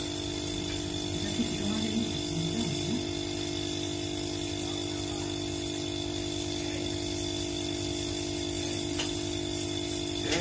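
Steady, even hum of a running engine or machine, holding one pitch, with a couple of faint ticks from handling parts.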